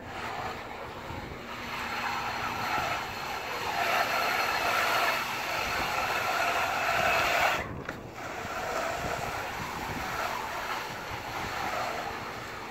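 Bull float swishing and scraping over a freshly poured wet concrete slab in long strokes. The hiss swells about a second and a half in, stops abruptly about two-thirds of the way through, then resumes more softly.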